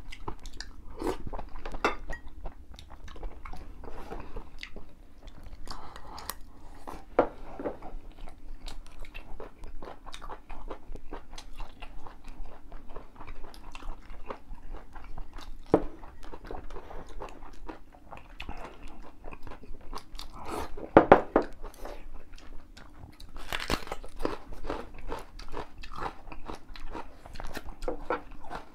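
Close-up eating sounds: crunching and chewing of firm, crunchy food such as cold-dressed beef tripe shreds, with small clicks of chopsticks against bowls. A louder run of crunches comes about 21 seconds in.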